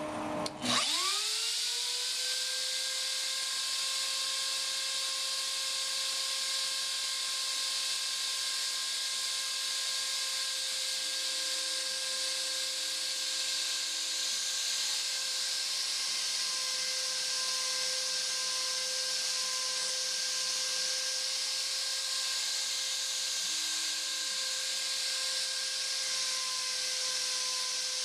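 CNC router's spindle (a trim router) spinning up with a rising whine about half a second in, then running at a steady high pitch. A fainter lower hum comes and goes twice as the axis motors move the cutter head down to the polycarbonate sheet.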